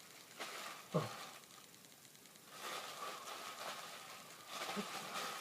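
Cardboard and plastic packaging being handled and rustled, with a short thump about a second in.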